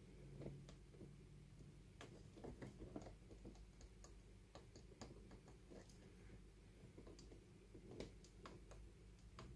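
Faint, irregular small clicks and scratches of fingers and a pointed tool picking and scraping at the solder side of a circuit board.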